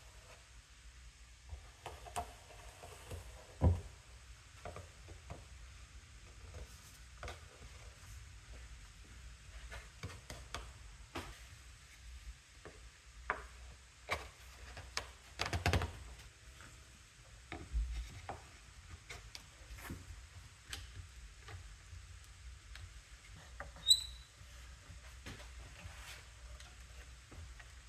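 Scattered knocks and taps of wood and tools being handled in a woodworking shop, the sharpest about 4 and 16 seconds in, over a low steady hum. A short, high beep sounds about 24 seconds in.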